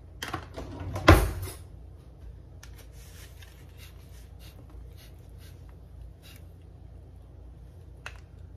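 A table knife set down with a sharp clatter into a plastic food container about a second in, then faint rustling and small ticks as a toasted sandwich is lifted off a paper plate.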